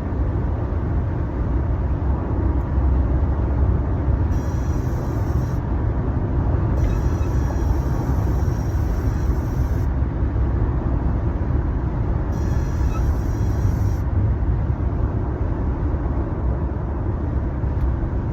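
Steady road and engine drone inside a Toyota Avalon's cabin at highway speed, with a thin high-pitched squeak that comes and goes three times. The owner says it seems to come from the dashboard and happens only between 60 and 80 mph; its cause is unknown.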